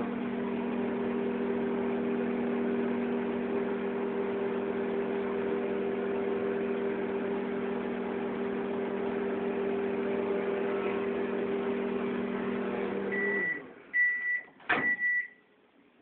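Daewoo microwave oven running with a steady hum that stops about thirteen seconds in as the heating cycle ends. It then gives about three short high beeps, with a sharp click among them.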